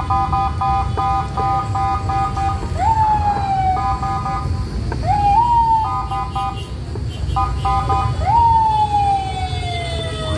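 Electronic siren or alarm tones: rapid repeated beeps sounding three pitches together, broken three times by a swoop that jumps up and then slides slowly down. A steady low rumble runs underneath.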